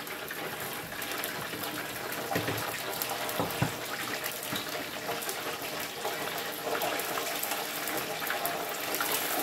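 Chicken wings frying in the hot oil of an open electric deep fryer: a steady bubbling, crackling sizzle, with a couple of knocks about three seconds in.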